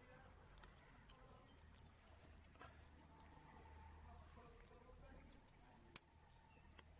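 Near silence with a faint, steady, high-pitched insect trill, broken by two sharp clicks near the end, the first the louder.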